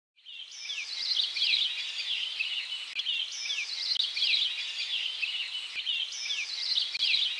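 Birds chirping and twittering: a busy run of short, quick downward-sweeping calls, the same pattern coming round about every three seconds like a loop.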